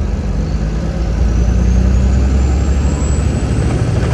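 Semi-truck's diesel engine running under way, heard inside the cab, with a thin high whine that rises slowly in pitch.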